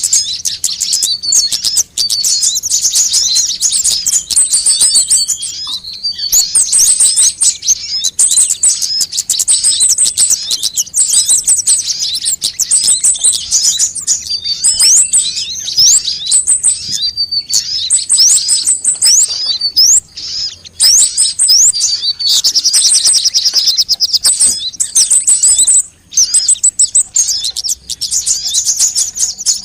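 Sunbird ('kolibri') calls played as a bird-lure recording: rapid, high, thin chirps and trills in dense, near-continuous runs, with two brief pauses.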